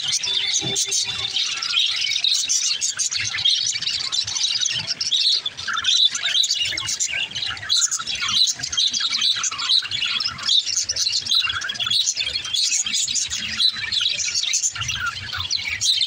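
A flock of budgerigars chattering and warbling, many high-pitched chirps and twitters overlapping without pause.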